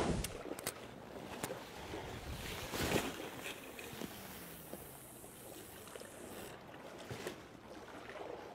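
Wind and sea ambience, with a few light clicks and a brief rush of noise about three seconds in.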